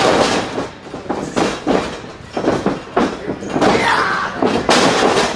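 Wrestlers' bodies slamming onto the canvas of a wrestling ring, a series of heavy thuds and slams. The loudest come right at the start and again shortly before the end, with a few lighter knocks between.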